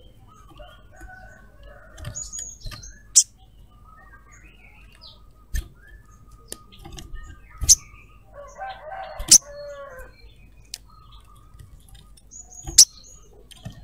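Caged sunbird (sogon) giving short scattered chirps and a brief chattering burst a little past halfway. Several sharp clicks or wing flutters sound as it moves about close to the microphone.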